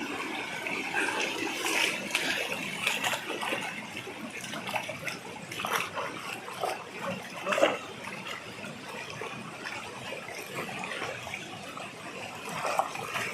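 A small mountain stream trickling over stones, with scattered short splashes and clicks throughout.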